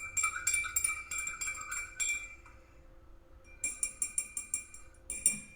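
A metal utensil clinking rapidly against a drinking glass, each tap leaving a short ring, in a run of about two seconds, then a second run after a pause and one last clink near the end.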